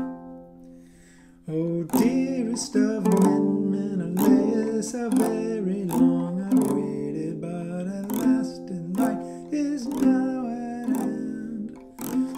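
A lyre is strummed in regular strokes, with a voice singing over it from about a second and a half in. The opening chord rings out and fades before the singing starts.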